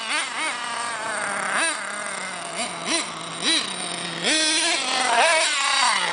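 HPI Savage X 4.6 nitro RC monster truck's small two-stroke nitro engine idling and revving in short throttle blips, several in quick succession in the middle, then held at a higher pitch near the end.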